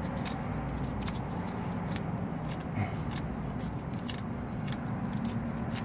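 Hands spreading and pressing JB Weld SteelStik epoxy putty over a leak in a gas tank to seal it: soft scraping with many small scattered clicks, over a steady low background rumble.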